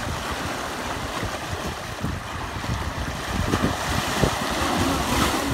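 Sea waves surging and breaking against shoreline rocks, with wind buffeting the microphone; the surf grows louder about halfway through.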